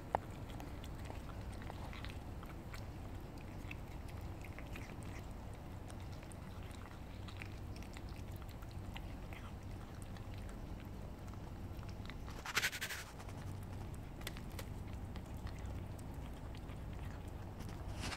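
Two domestic cats eating wet cat food, with small wet chewing clicks over a steady low background rumble. A short, louder burst of noise comes about two-thirds of the way through.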